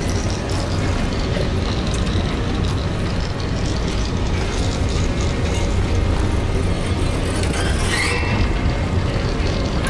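Dark ambient electronic soundscape: a dense, steady low drone thick with mechanical-sounding noise, with a brighter hissing swell about eight seconds in.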